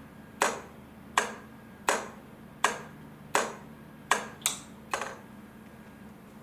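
Crossing-light flasher clicking as it alternates the lamps: sharp, evenly spaced clicks about every three-quarters of a second. Near the end three come quicker, then the clicking stops about five seconds in. A faint steady hum lies under it.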